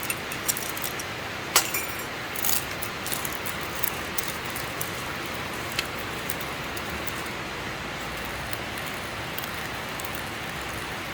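Coffee grinder grinding old coffee beans that have taken on moisture from poor storage. It makes a steady grinding noise with scattered sharp cracks in the first six seconds or so, then runs smooth, without a hard crushing sound.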